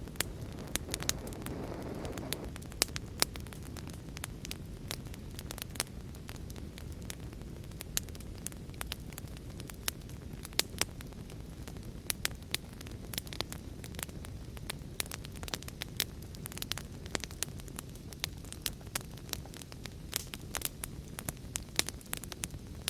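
Wood fire burning: a steady low rush of flames with many sharp crackles and pops at irregular moments. A soft hiss rises and fades in the first couple of seconds.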